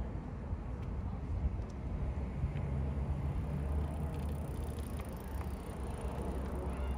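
Low engine rumble of a passing motor vehicle, swelling about two and a half seconds in and holding for most of the rest.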